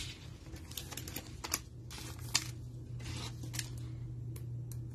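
Light, irregular plastic clicks and taps of a rigid plastic top loader and a trading card being handled, about eight short clicks, over a low steady hum.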